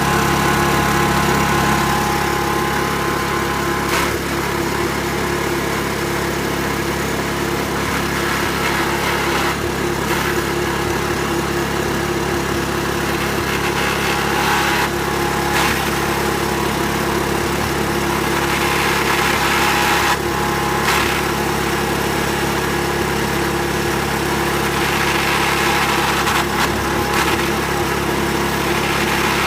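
Pressure washer running steadily with a constant machine hum, broken every few seconds by brief crunching noises.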